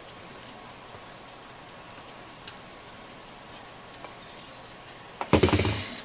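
Quiet background hiss with a few faint ticks, then a loud burst of noise for about the last second.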